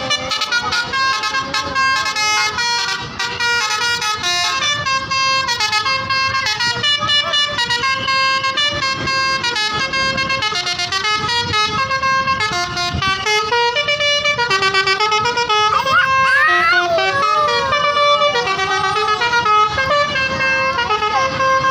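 Tour bus 'telolet' multi-tone musical horn playing a tune of stepped, held notes. Past the middle, sliding tones rise and fall over the tune.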